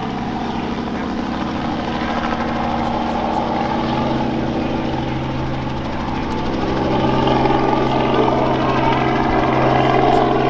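Robinson R44 Raven II helicopter in flight overhead: its main rotor and six-cylinder Lycoming piston engine make a steady, even drone. It grows a little louder from about seven seconds in.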